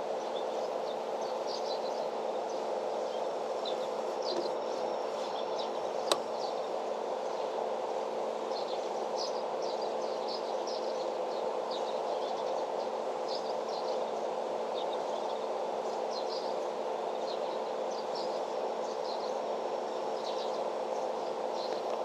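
Rural outdoor ambience: scattered short high chirps over a steady low hum, with one sharp click about six seconds in.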